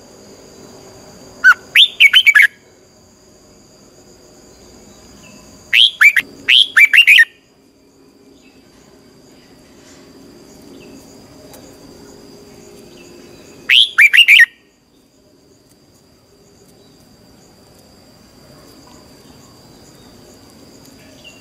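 Red-whiskered bulbul singing in three loud, short bursts of quick chirping notes, about 1.5, 6 and 14 seconds in. A faint steady high tone runs behind.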